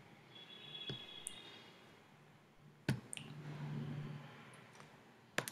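A few sharp computer mouse clicks, the loudest about three seconds in and again near the end, over faint low background hum.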